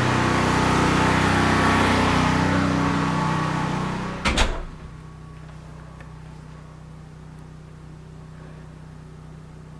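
Portable gas generator running steadily with a low hum, then a door shuts with one sharp knock about four seconds in, after which only a much fainter steady hum remains.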